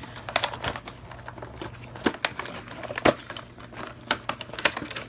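Action-figure packaging being handled and opened: irregular clicks, taps and crinkles of cardboard and plastic, with two louder knocks about two and three seconds in.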